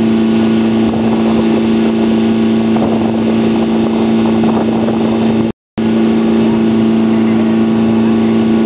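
Inboard engine of a motorized outrigger fishing boat running steadily underway, a loud, even drone. The sound cuts out completely for a moment about five and a half seconds in.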